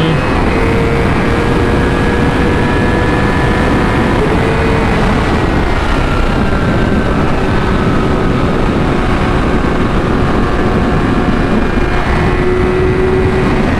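Yamaha R6 inline-four engine holding steady revs at highway speed, under a loud, steady rush of wind on the helmet-mounted microphone.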